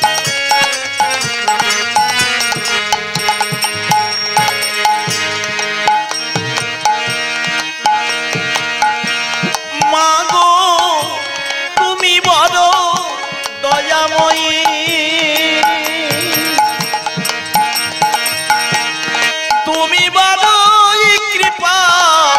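Bengali devotional kirtan music played between sung verses: held chords over a hand drum. About ten seconds in, a wavering lead melody with vibrato joins them.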